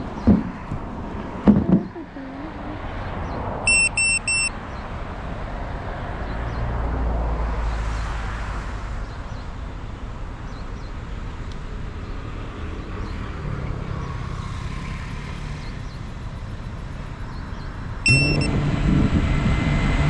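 Road traffic passing on a steady background, with three quick high electronic beeps about four seconds in. Near the end a single beep, then an FPV drone's motors start up with a louder steady hum.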